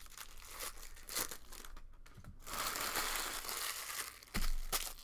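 Foil trading-card pack crinkling and rustling as it is torn open and handled, busiest in the second half, with a sharp thump about four seconds in.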